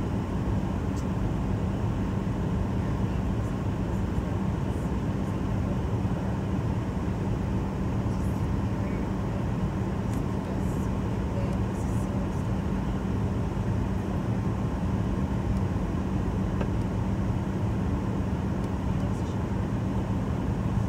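Steady cabin noise of an airliner in flight: the drone of the jet engines and rushing air heard from inside the passenger cabin, with a constant low hum.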